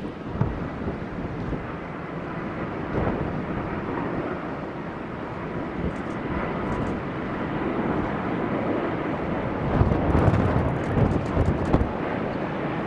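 Large jet airliner landing close by: a steady engine roar that grows louder, with gusts of wind buffeting the microphone about ten seconds in.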